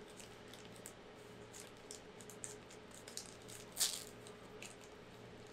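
Faint clicks and rustles of cardboard basketball trading cards being flipped through by hand, with one louder flick about four seconds in.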